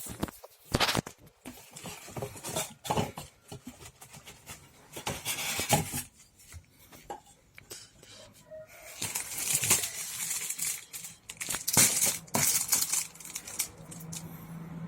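Packaging of a set of motorcycle alloy wheels being opened and handled by hand: irregular knocks and clicks with bouts of rustling and tearing, busiest about two-thirds of the way through.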